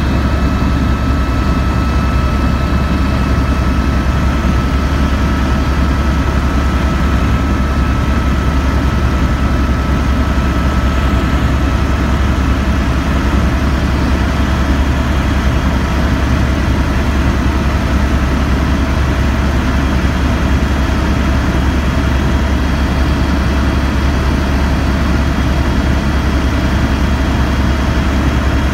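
Helicopter in flight, heard from inside the cabin: a steady, loud drone of rotor and engine that does not change.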